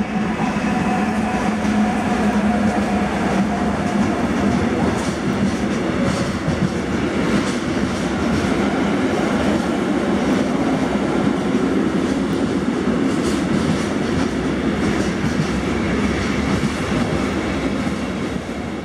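Freight train passing close by: a DB electric locomotive with a steady humming whine for the first few seconds, then a long rake of intermodal container wagons rolling past with a constant rumble and scattered clicks of wheels over rail joints.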